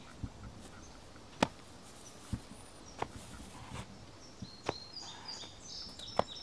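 Birds chirping, mostly in the second half, over steady open-air background noise. A few sharp, well-spaced taps of footsteps walking on pavement.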